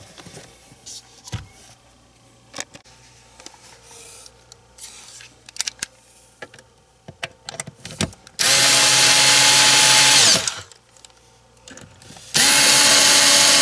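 Power drill/driver driving in mounting screws, run twice for about two seconds each, its motor whirring steadily and then winding down. Before that come light clicks and knocks of parts being handled.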